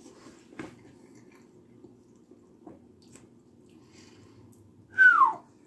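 Soft chewing and a few faint clicks of a fork in a cup of mac and cheese, over a low steady hum. About five seconds in, one short, loud whistle-like tone slides down in pitch.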